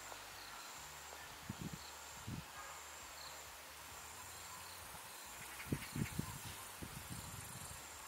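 Insects trilling in a faint, steady, high pulsing chirr. Several dull low thumps break in, the loudest cluster a little past the middle.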